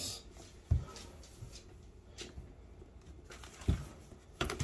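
Cardboard product box being handled as its lid is worked off: faint rubbing, a soft low thump about a second in and another near the end, followed by a few quick knocks.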